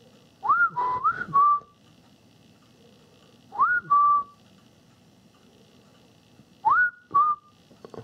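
A person whistling three short phrases a few seconds apart, each a quick rising note followed by a steady held note.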